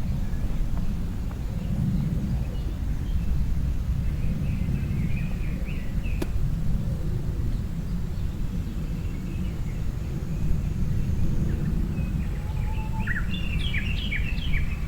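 Small birds chirping and singing, a few faint phrases about five seconds in and a busier burst of quick notes near the end, over a steady low background rumble.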